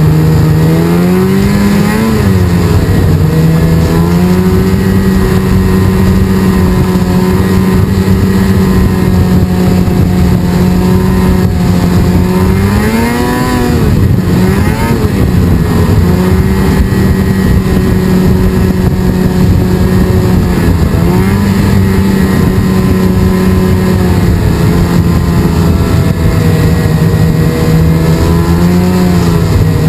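Snowmobile engine running loud and steady under the rider, heard from on the sled. Its pitch dips briefly and climbs back several times, about two seconds in, around thirteen and twenty-one seconds, and near the end.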